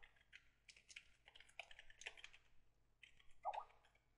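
Faint typing on a computer keyboard: a string of short, irregular key clicks as a line of text is entered. About three and a half seconds in there is one brief, louder, lower sound.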